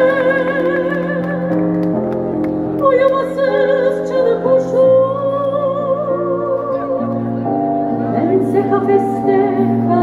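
A woman's soprano voice singing in operatic style, holding long notes with a wide vibrato. Beneath it, sustained accompanying chords change every second or two, heard as live amplified concert sound.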